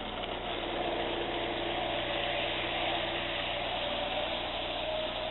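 Lionel toy train running around its track: a steady mechanical whirr of the electric motor and gears, with a faint steady hum over it.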